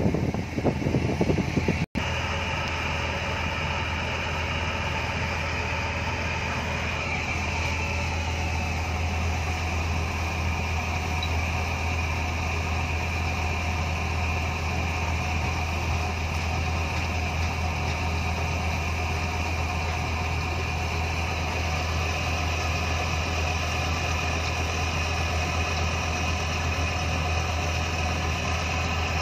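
Wind buffeting the microphone for about the first two seconds, then, after a cut, a boat engine running with a steady low drone, heard from on board.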